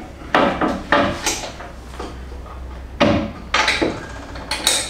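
Folding metal lamp arm of a workbench being swung down and stowed under the bench top: a run of separate metallic clanks and knocks from the hinged tubing, several close together near the end.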